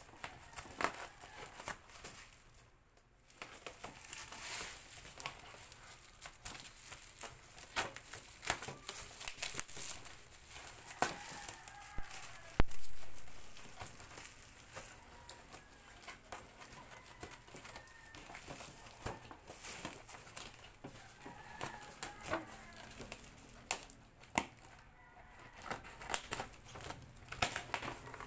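Scissors snipping, and black plastic parcel wrapping crinkling and tearing as it is cut off a cardboard box, with the box's tape and cardboard being cut and handled. There are many small clicks and rustles, and one sharp knock about halfway through is the loudest sound.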